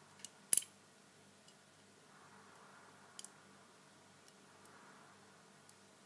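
Metal lock pick and tension wrench clicking in the five-wafer cylinder of a Lockwood 885 window lock during picking: a sharp cluster of clicks about half a second in, a double click about three seconds in, and a few faint ticks. A steady refrigerator hum sits underneath.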